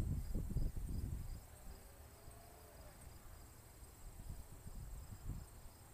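Crickets chirping in a steady pulse of about three chirps a second over a continuous high insect trill. A low rumble underneath is strongest for the first second and a half, then dies away and returns faintly near the end.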